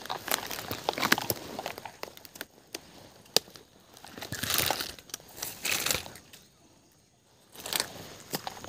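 Rustling and crackling, with two longer swishing noises about four and a half and six seconds in, then a brief lull.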